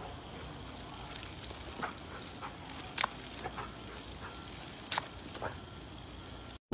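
Steady hiss and patter of a thin jet of water splashing into a plastic kiddie pool, with a few sharp ticks, stopping abruptly near the end.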